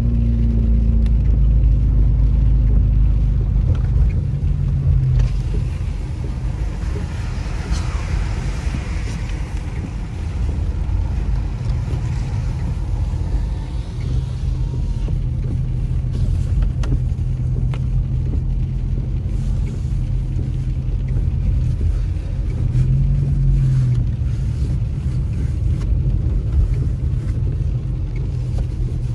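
Car driving on a wet road, heard from inside the cabin: a steady low engine and tyre rumble, with the engine note briefly rising and falling a little past two-thirds of the way through.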